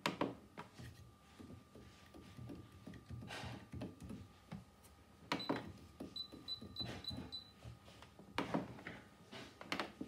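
Beko tumble dryer control panel being operated: clicks and knocks of fingers pressing the buttons and turning the programme dial. A little past the middle, a quick run of five short high beeps as the dial is turned through its settings.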